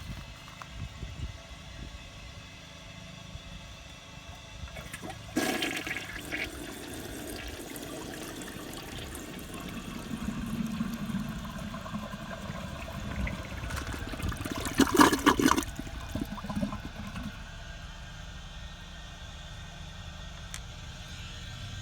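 A 2004 American Standard Cadet toilet flushing. The flush starts suddenly about five seconds in with a rush of water, grows loudest about fifteen seconds in, then settles to a quieter steady flow of water.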